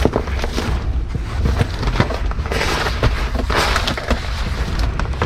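Rummaging through a bag of clothes among dumpster trash: irregular crackling and rustling with many small cracks and knocks.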